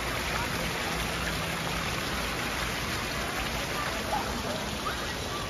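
Steady rush of falling water from an indoor garden water feature, an even hiss with no breaks.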